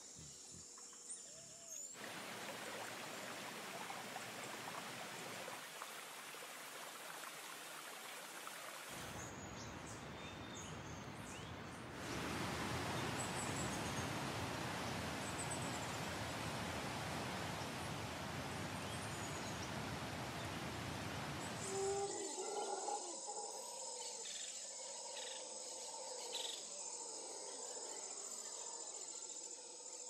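Outdoor ambience cut together from separate recordings. A steady rushing noise, loudest in the middle, gives way for the last several seconds to a steady high-pitched insect trill with a few short bird-like chirps.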